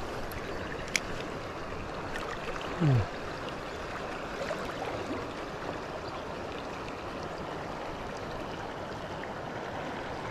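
Swollen, fast river running in high water: a steady rushing of current. A short sharp click comes about a second in, and a brief low sound falling in pitch stands out near three seconds in.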